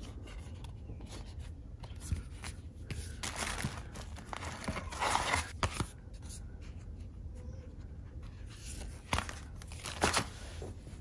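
Hands handling cardboard board books: pages and covers flapping and tapping as the books are turned over and shuffled together, with rustling of packing paper and plastic wrap. It comes in two busier stretches, a few seconds in and again near the end.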